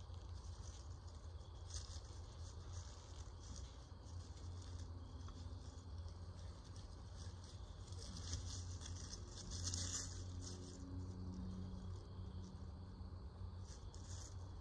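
Soft rustling and scraping as nylon rope is wrapped and pulled around sapling ladder rungs, with dry leaves crackling under the hands, loudest about ten seconds in. A low steady hum runs underneath.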